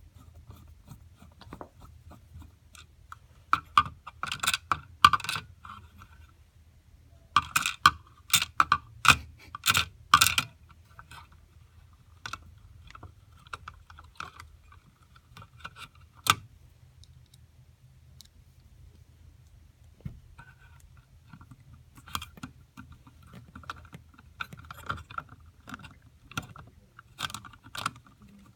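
A screwdriver and small screws clicking and scraping as a circuit board is screwed down into its housing. There are two dense runs of clicks in the first third, a lone click midway, and scattered lighter clicks near the end.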